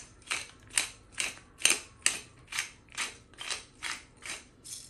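Hand-twisted pepper mill grinding black pepper: a steady run of about a dozen short rasping twists, a little over two a second.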